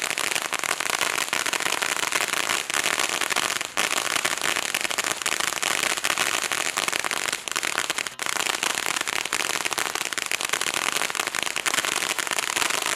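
Black Cat Illuminati firework fountain burning, with a dense, continuous crackling over a rushing hiss.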